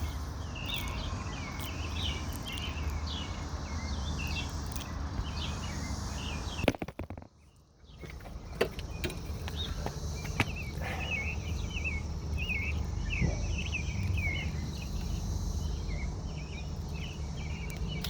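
Outdoor ambience: many small chirps over a steady low hum, with no bell ringing. A sharp knock comes about seven seconds in, followed by a second of near silence; a few fainter knocks come later.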